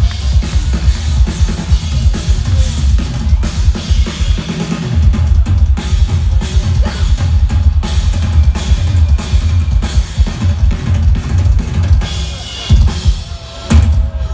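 Live rock band's drum kit playing a fast, heavy beat with a pounding bass drum and snare, loud through a concert PA. Near the end the beat breaks off briefly between two big hits.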